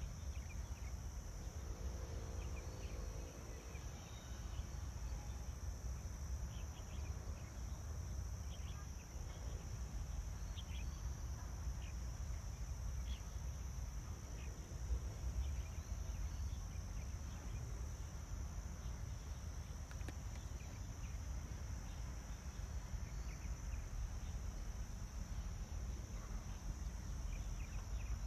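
Wind rumbling against the microphone, with a steady high-pitched insect buzz over it and scattered faint short chirps.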